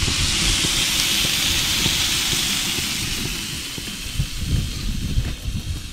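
Fresh fish sizzling on a hot barbecue plate: a steady hiss that eases off a little about halfway through, over an irregular low rumble.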